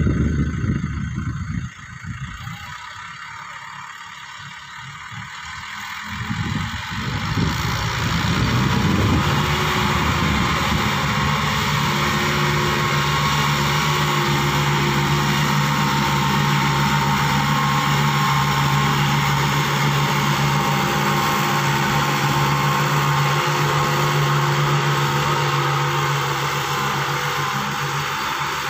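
Farm tractor's diesel engine working under heavy load while towing a loaded sugarcane truck out of soft mud. It drops back about two seconds in, then climbs over the next few seconds to a loud, steady pulling note that holds to the end.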